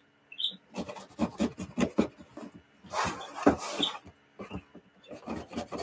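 Folding pocket knife cutting open a cardboard box along its lid seam: a run of quick scrapes and rasping cuts, loudest a little past the middle.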